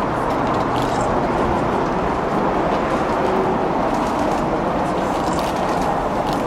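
A train in the station making a steady rolling noise on the tracks, with a few faint clicks.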